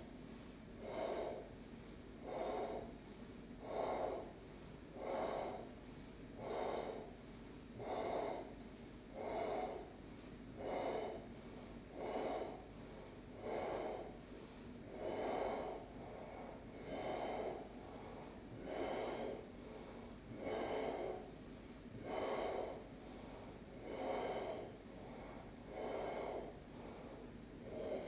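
A person's deep, audible ujjayi breathing, the slow, controlled yoga breath drawn through a narrowed throat. Each inhale and exhale is a separate swell of breath noise, one about every one and a half to two seconds, slowing slightly toward the end.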